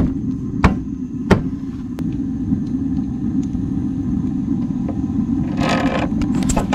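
Propane burner of the camper's water heater lit and burning with a steady low rumble, a few sharp clicks in the first two seconds. A short rustle near the end.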